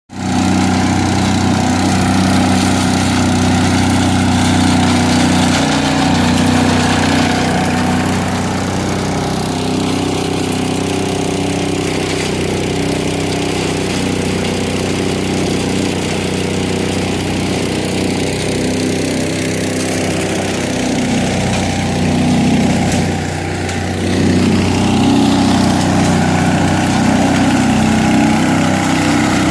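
Gasoline engine of a leaf vacuum machine running steadily, dipping briefly in level about three-quarters of the way through.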